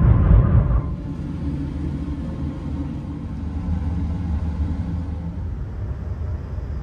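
Another high-speed train passing close alongside, heard from inside a bullet train: a loud rush of air and rumble that dies away about a second in. It gives way to the steady low rumble of the carriage running at speed.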